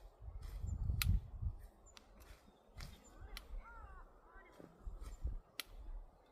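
Wind buffeting the microphone in low rumbling gusts, with scattered sharp clicks and taps from work close by. About three and a half seconds in, a brief faint pitched call rises and falls a few times.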